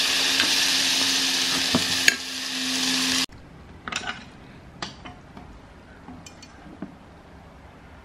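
Thinly sliced pork belly sizzling in a hot pan while it is stirred with a wooden spoon, with scattered scraping clicks. The sizzle cuts off abruptly about three seconds in, leaving a few light clinks of a ceramic bowl handled on a stone countertop.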